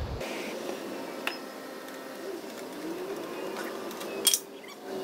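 A propane brew burner's low roar cuts off suddenly as the flame is killed. Then a wooden paddle stirs the wort in a stainless steel brew kettle to set up a whirlpool, with a light knock about a second in and a sharp clatter near the end.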